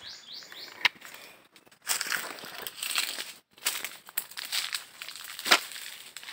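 Dry leaves, reeds and twigs rustling and crunching as a person pushes on foot through thick undergrowth, in irregular bursts, with a sharp snap about a second in and a louder crack about five and a half seconds in.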